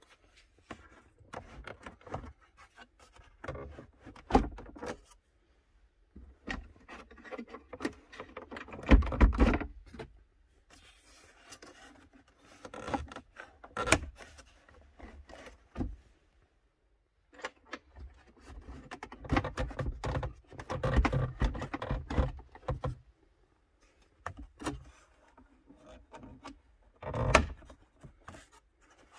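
Plastic centre-console trim and storage-tray insert being handled and fitted by hand: irregular clicks, knocks and rubbing of plastic parts. There are louder bouts of clattering about nine seconds in and again around twenty seconds, and a sharp knock near the end.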